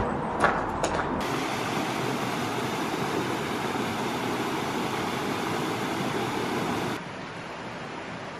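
A couple of footsteps on a gravel path, then the steady rush of water pouring over a small stone weir in a stream. Near the end the rush cuts off suddenly to a quieter, even hiss.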